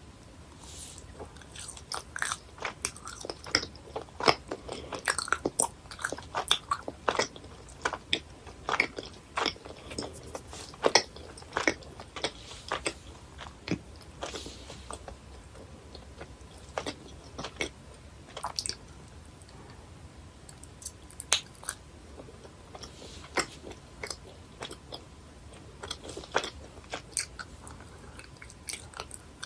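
Close-miked biting and chewing of chewy jelly and gummy candies: a run of sharp, sticky clicks and smacks, thickest in the first half and thinning out after about fifteen seconds.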